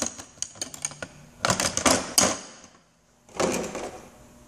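Snap-on tool box drawers sliding shut and open with metallic clicking and clatter, tools rattling inside. The clatter comes in two bursts, with a brief hush between them.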